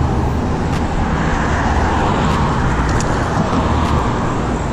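Busy road traffic running past, a steady rumble and hiss of cars, heard from a moving bicycle with a heavy low rumble of wind on the camera's microphone.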